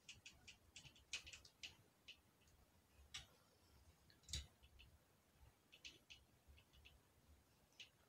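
Faint, irregular small clicks and taps of AR-15 trigger-group parts being handled and worked into the lower receiver, with a slightly louder tap a little past the middle.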